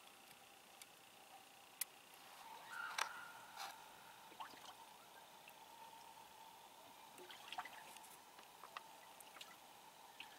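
Near silence: faint outdoor ambience with a few small scattered clicks and a faint short call about three seconds in.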